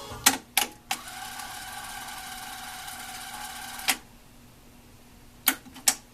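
Sony TC-K81 cassette deck's transport mechanism: three quick clicks of the keys, then a steady motor whir for about three seconds as the tape winds, ending in a click, and two more clicks near the end.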